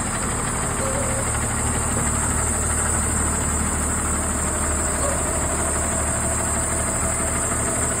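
A Blue Bird school bus engine idling steadily.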